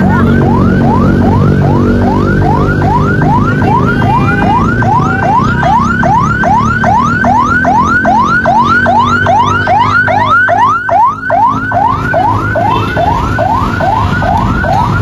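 Electronic vehicle siren sounding a fast, repeating rising whoop, about two and a half per second, over the steady rumble of a heavy vehicle's engine.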